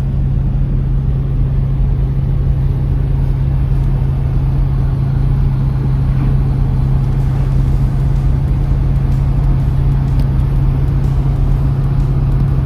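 Chevrolet Nova driving at a steady pace, heard as a steady low engine and road drone that does not change.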